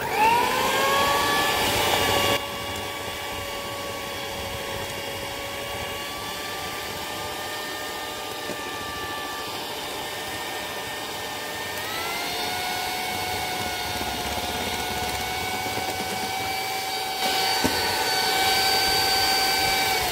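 Electric mixer beating flour into a creamed butter and egg-white cookie batter: the motor whine rises as it starts, steps up in pitch about twelve seconds in, and falls away as it is switched off at the end.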